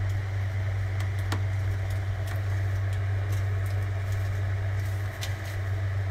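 A steady low machine hum with an airy hiss, like a running fan, with a few faint clicks and crinkles as a pack of sliced cheese is handled.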